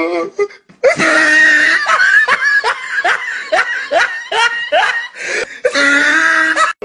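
A person laughing loudly in a long run of short repeated laughs, about three a second, starting about a second in after a brief pause.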